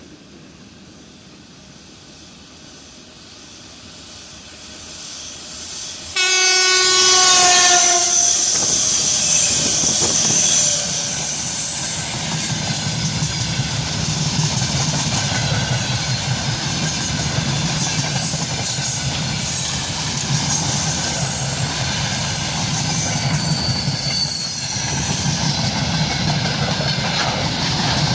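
3ES5K electric freight locomotive approaching with a rising rumble, sounding its horn once for about two seconds as it nears, then passing loudly. The freight wagons follow, rolling steadily over the rails.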